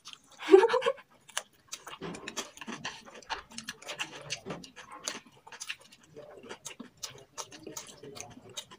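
People eating fast with chopsticks: irregular clicks and clatter of chopsticks against plates, with chewing and mouth noises. A brief vocal sound comes about half a second in.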